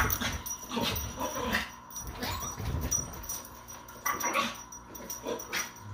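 Two small dogs play-fighting, with yips and whimpering in short irregular bursts.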